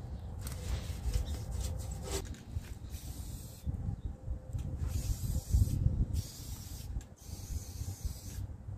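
Green paint being sprayed onto the excavator cab: a hiss that comes in several bursts of about a second each, starting about two seconds in, over a low rumble of wind on the microphone.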